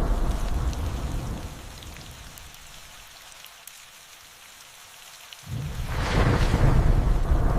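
Thunderstorm: steady rain with rolling thunder. One rumble of thunder dies away over the first two seconds, leaving the rain alone, then a new roll of thunder comes in suddenly about five and a half seconds in.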